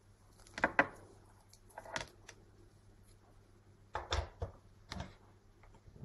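Short clicks and light knocks as wire leads are clipped onto the terminals of a plastic circuit-kit bulb holder and the parts are handled on a desk: about five irregular clacks, the loudest a small cluster with a low thump about four seconds in.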